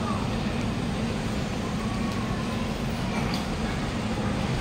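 Busy MRT station platform ambience: a steady low hum of train and station machinery, with faint voices of passengers.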